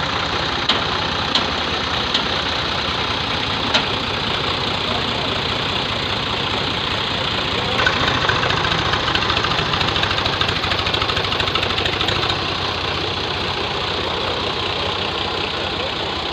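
Diesel tractor engine running steadily at idle with a knocking clatter. There are a few sharp clicks in the first few seconds, and it runs a little louder for several seconds from about eight seconds in.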